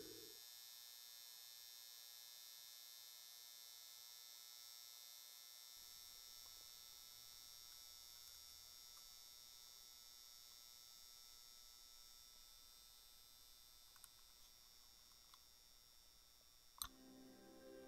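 Near silence: faint steady high-pitched hum of room tone, with a sharp click near the end as soft music begins.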